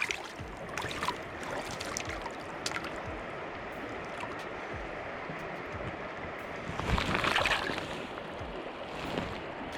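Steady rush of flowing river water, with a few faint clicks and a brief louder surge about seven seconds in.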